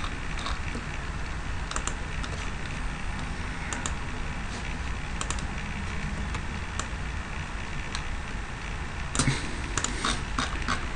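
Scattered clicks of a computer mouse and keyboard over a steady low hum, with the clicks coming thicker and faster near the end.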